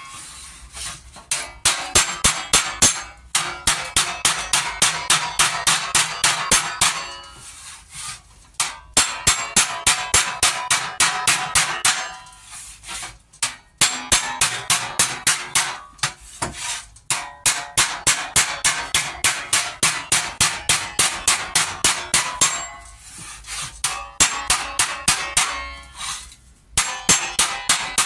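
Hammer striking sheet steel held against a steel dolly, folding a door panel edge over. The blows ring and come in quick runs of several a second, broken by short pauses.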